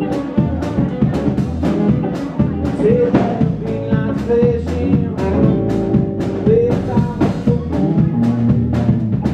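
Live blues band playing: electric guitars, a drum kit keeping a steady beat, and a saxophone, heard through a phone microphone in a small bar room.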